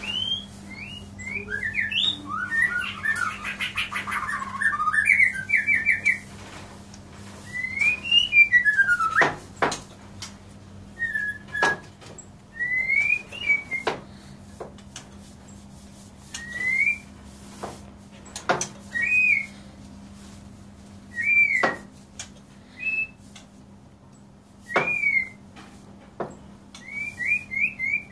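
White-rumped shama singing: clear whistled phrases, some rising and some falling. A fast run of rapid notes comes a few seconds in, followed by short phrases every two to three seconds with pauses between.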